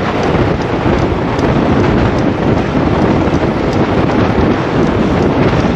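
Loud, steady wind buffeting on the microphone of a camera mounted on a moving road bike.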